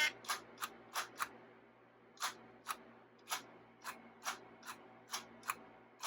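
Irregular sharp mechanical clicks, about two a second, as the parts of a 1962 Edison Voicewriter dictation machine, such as its head-lifting lever, are worked by hand, over a faint steady low hum.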